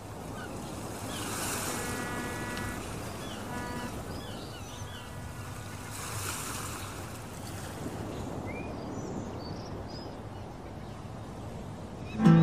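Wind and road noise rushing over the microphone of a moving motorcycle, a steady hiss. Two brief steady tones come through faintly about two and about four seconds in.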